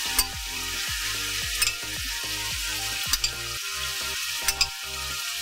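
Chicken pieces frying in oil in a karahi pan, a steady sizzle as spoonfuls of yogurt go in. Four sharp clicks come about a second and a half apart.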